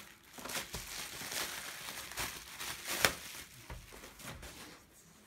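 Plastic bubble wrap crinkling and rustling as it is pulled off a cardboard box, with one sharper crackle about three seconds in. The rustling dies away near the end.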